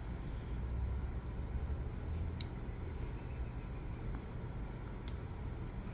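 Steady low outdoor background rumble with a steady high hiss, broken by two faint clicks about two and a half and five seconds in.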